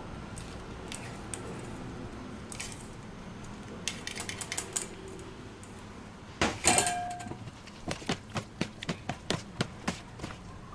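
Metal spoon and fork clicking against a plastic bowl as a shredded papaya salad is tossed, a regular run of sharp clicks about three a second in the last few seconds. About halfway through comes one louder clink with a short ring.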